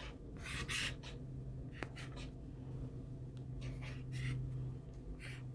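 Drawing strokes on paper: several short, scratchy strokes spaced a second or two apart, over a low steady hum.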